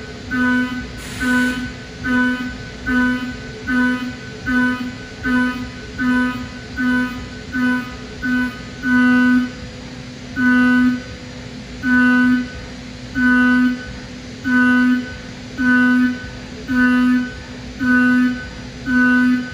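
Kennametal six-flute ceramic end mill cutting Inconel 625 at high speed in a Haas UMC-750SS, a pitched machining whine that comes and goes in even pulses about every three-quarters of a second as the cutter enters and leaves the material on each pass.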